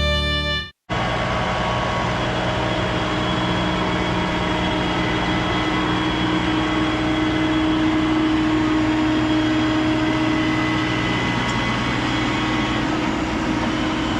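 Fiddle music cuts off just under a second in, then a tractor engine runs steadily with a constant hum.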